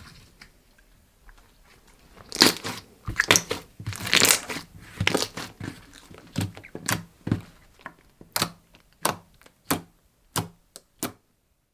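Clear slime being squeezed and pressed by hand, giving sticky clicks, crackles and air-bubble pops. After about two quiet seconds comes a busy run of squishes, then separate pops about every half second.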